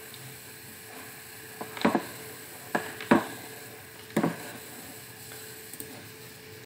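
A few short, sharp clicks or knocks, four or five spread over a couple of seconds, over a steady faint hum and hiss; no speech.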